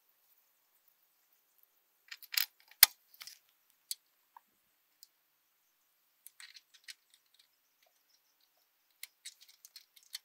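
Metal clinks and clicks of a wrench and bolts and nuts against a torsion axle's steel mounting bracket as it is bolted up under a trailer frame. They come in three short clusters, the loudest a single sharp click about three seconds in.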